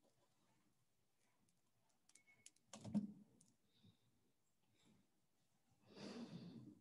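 Near-silent room tone with faint clicks from a computer keyboard and mouse, one sharper, louder click about three seconds in, and a brief burst of noise near the end.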